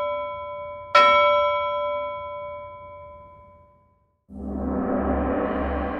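Outro sound effects. A bell-like chime is struck about a second in and rings out, dying away over about three seconds. After a brief silence, a deep gong swells in at about four seconds and keeps sounding.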